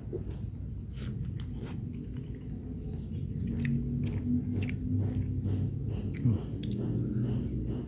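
A person chewing pempek, a Palembang fish cake, with a mouthful of soft food, giving many short wet smacking clicks. There is a brief louder moment about six seconds in.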